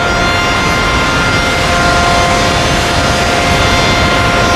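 Car wash air dryer blowers running: a loud, steady rush of air with a whine on top.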